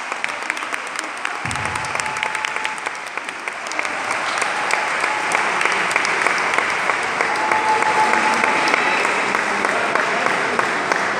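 Spectators applauding, the clapping swelling about four seconds in. A dull thud comes about a second and a half in.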